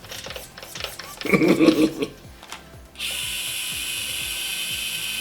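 Axial SCX24 micro RC crawler's tiny electric motor and gear drivetrain spinning on the bench: a few light clicks, a short loud burst about a second in, then from about three seconds in a steady high whir of the motor and gears running at constant speed.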